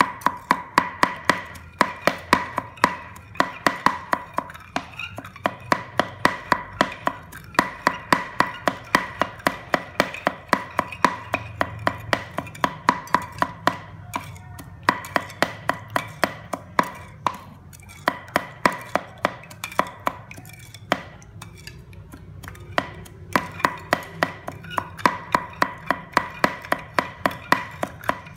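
Knife chopping food on a cutting board in quick runs of about four strikes a second, each strike ringing a little, with short pauses between runs.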